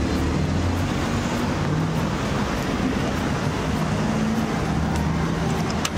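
Steady background rumble with a low hum and faint voices underneath.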